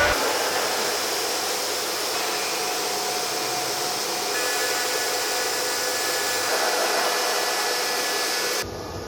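CNC milling machine running: a steady whirring hiss with faint high tones, changing abruptly about four seconds in and again near the end.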